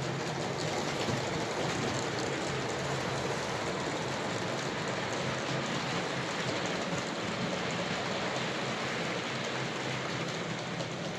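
Model railway trains running on the layout's track: a steady rolling rumble of wheels on rail, with a low hum from the locomotive motors.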